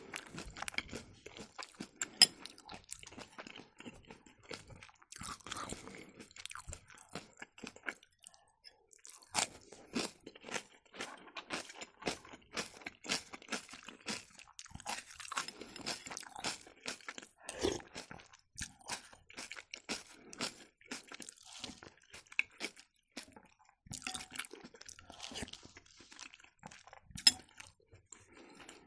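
A person chewing a grated beetroot and carrot salad with raisins, a quick steady run of small crunches, pausing briefly about a third of the way in.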